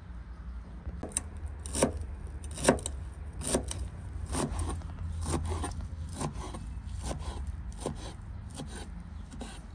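Irregular scraping and clicking of hard objects being handled, a dozen or more short strokes over several seconds, over a steady low rumble.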